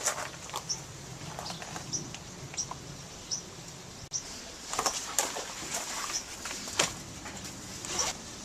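Birds chirping in short, repeated high notes, with scattered sharp clicks and knocks over a steady background hiss.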